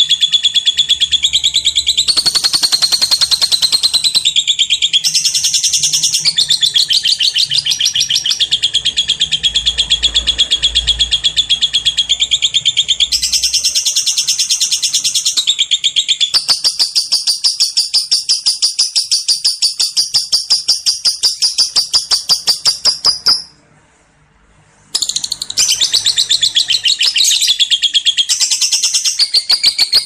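Lovebird singing a long ngekek: a shrill, rapid chattering run of notes repeated many times a second. It breaks off for about a second and a half about three-quarters of the way through, then resumes.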